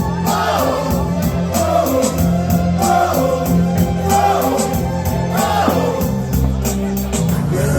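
Live band playing a song, a singer's melody over drums and bass; the sung line stops about six seconds in while the band plays on.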